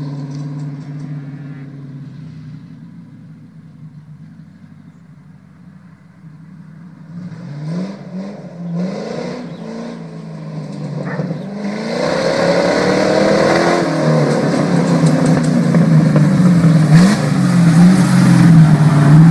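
V8-swapped grey vintage tractor's V8 engine running and fading as it drives away, then revving up through several gear changes as it comes back. It grows loud as it passes close by.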